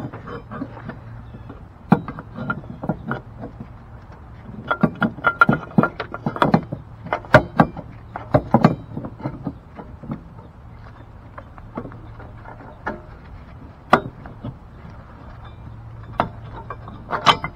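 Irregular knocks, clicks and clunks as a Volvo S80's upper engine mount is worked by hand into its tight spot in the engine bay, busiest in the middle stretch.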